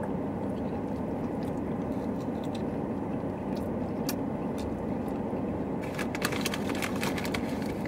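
Steady low hum inside a car cabin, with small clicks and crunches of chewing chicken nuggets and handling sauce cups and packaging, thickest about six seconds in.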